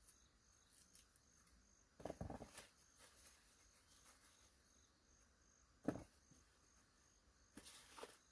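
Near silence with faint insect chirping, a thin high note pulsing about three times a second, broken by a few soft knocks and rustles.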